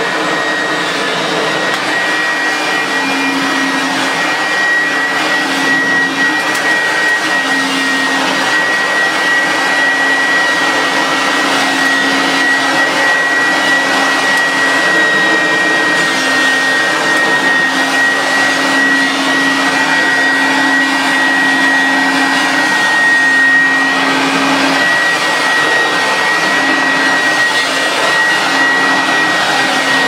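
1990s Goblin Laser 2500 Plus upright vacuum cleaner running steadily with a high whine, being pushed over a carpet rug.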